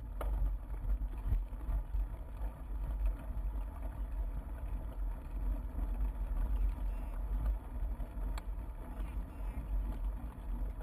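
Wind buffeting and rolling rumble picked up by a GoPro on a moving bike crossing a grassy path, a steady low rumble with two sharp clicks, one near the start and one near the end.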